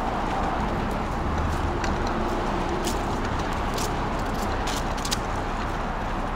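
Steady city road traffic noise from cars passing on the avenue, with a few light, sharp clicks scattered through it.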